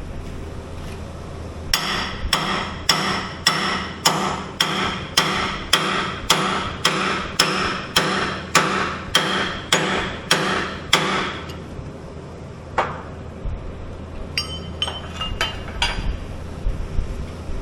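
Hammer blows on metal at about two a second for some ten seconds, each ringing briefly, driving a bushing during axle bushing replacement on a Skyjack SJIII 3219 scissor lift. After a pause comes one more blow, then a few light metal clinks.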